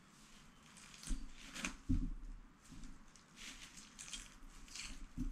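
Fingers peeling the shell off a hard-boiled egg: small irregular crackles and ticks of breaking shell, with a few soft knocks from handling, the loudest about two seconds in.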